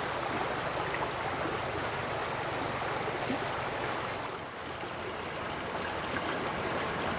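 River water flowing, a steady rushing hiss, with a thin, steady high-pitched tone above it.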